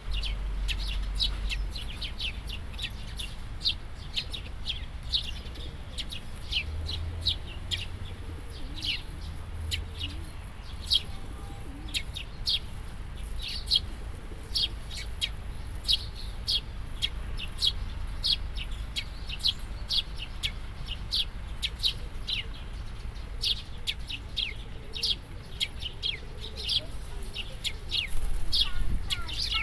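Eurasian tree sparrows chirping in quick, short, high chirps, several a second and unbroken, the courtship chirping of sparrows. A steady low rumble lies underneath.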